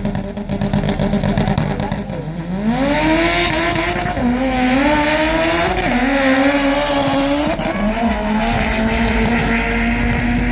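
Drag car accelerating hard down the strip from about two and a half seconds in. The engine pitch climbs, drops sharply at each upshift and climbs again, three shifts in all, then holds steady at speed.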